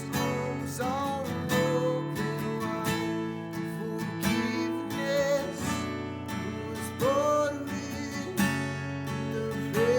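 Worship music led by a strummed acoustic guitar.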